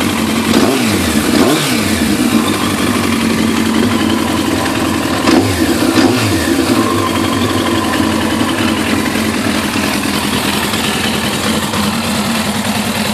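Suzuki GSX-R1100 WP's liquid-cooled inline-four running through a full Yoshimura exhaust: two quick throttle blips in the first two seconds and another about five seconds in, each rising and falling in pitch, then a steady idle.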